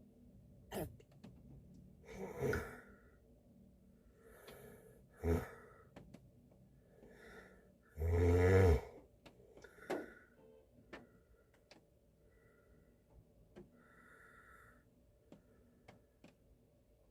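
A man snoring and breathing heavily in his sleep inside a car, in irregular breaths and snorts. The loudest is a long, rumbling snore about eight seconds in. Scattered light ticks fall between the breaths.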